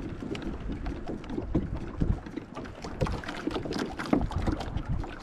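Water lapping and splashing against the hull and outrigger floats of a Hobie Mirage Tandem Island sailing trimaran under way, in an irregular run of small splashes, with wind rumbling on the microphone.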